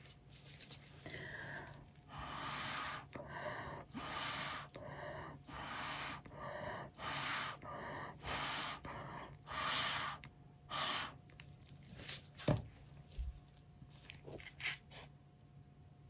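A run of short puffs of breath blown through a straw onto wet acrylic pour paint, about one a second, spreading the paint outward to open up cells in a bloom. A few sharp clicks follow near the end.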